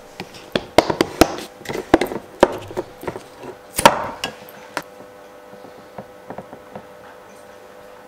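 Clip-lock plastic lid of a glass food storage container being unlatched and lifted off: a quick series of sharp clicks and knocks, the loudest just before four seconds in as the lid comes away, followed by a few faint ticks.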